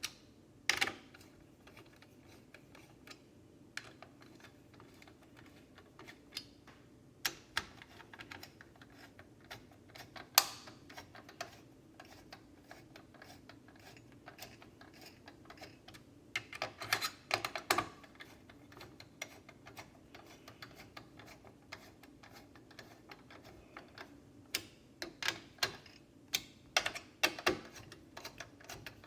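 Scattered light clicks and taps, with short quick runs of them about 17 seconds in and again near the end, from hands working on a desktop computer.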